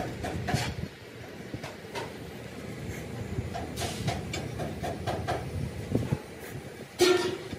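Light metallic clinks and scrapes of a flat steel bar set and shifted across a steel wheel rim, over steady workshop noise, with a louder knock near the end.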